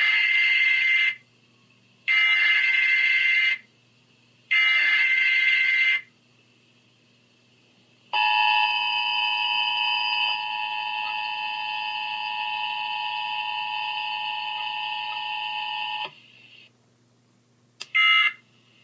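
Emergency Alert System broadcast tones: three harsh data bursts of about a second and a half each, then a steady two-tone attention signal lasting about eight seconds, and one short burst near the end.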